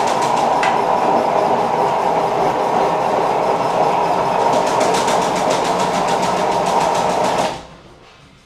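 A loud machine running steadily with an even, rapid rattle, then cutting off abruptly near the end.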